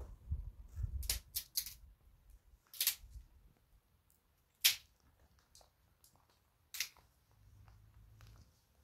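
Scattered sharp clicks and knocks, about six of them at uneven gaps, the loudest about halfway through, with a low rumbling near the start.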